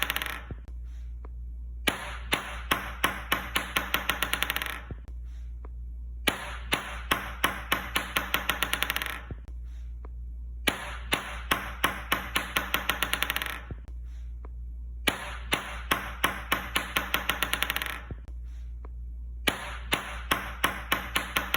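Ping-pong ball dropped and bouncing, the bounces coming faster and faster until they run together in a quick rattle. The drop repeats about every four and a half seconds, over a steady low hum.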